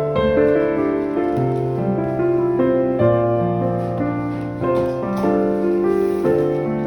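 Background music: a soft piano piece with sustained chords that change about every second.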